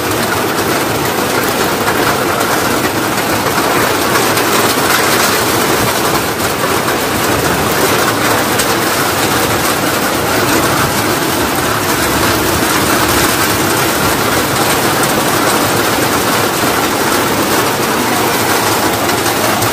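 Steady rain falling on crops, grass and trees: a loud, even hiss without a break.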